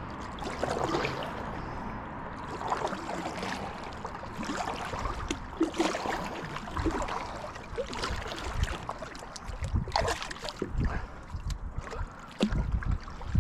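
Water sloshing and lapping around a kayak, with scattered knocks and clicks.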